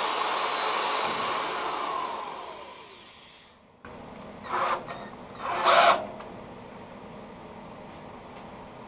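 Handheld power tool running briefly, then winding down after it is switched off, its pitch falling over about three seconds. Two short rasping strokes follow.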